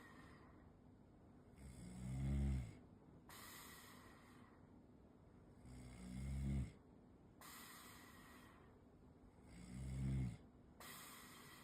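A dozing person snoring three times about four seconds apart, each snore a low buzz that swells and then cuts off, with a breathy hiss between snores. This is the snoring that the sleeper calls a vacuum sound and wonders may point to sleep apnea.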